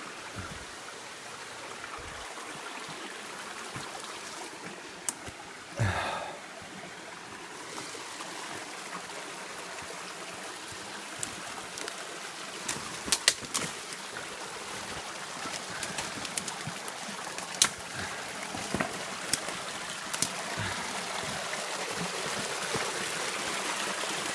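Small rocky rainforest creek trickling and babbling, growing slowly louder toward the end, with scattered sharp snaps and crunches of footsteps on sticks and leaf litter.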